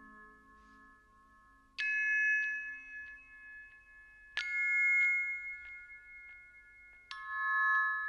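Background music of struck, bell-like chime notes: three strikes about two and a half seconds apart, each ringing on until the next.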